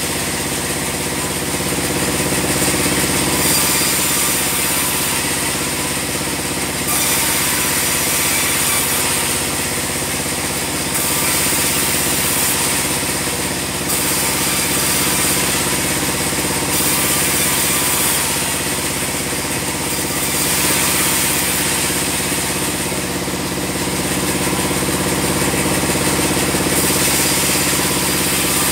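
Band sawmill running steadily, with a higher hiss that swells and fades every few seconds.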